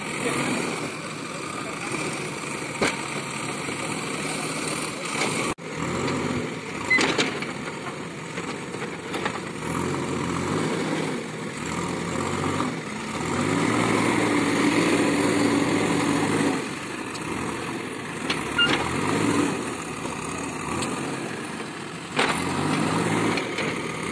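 JCB 3DX backhoe loader's diesel engine running and revving as the front loader works, louder for a few seconds in the middle, with a few sharp knocks.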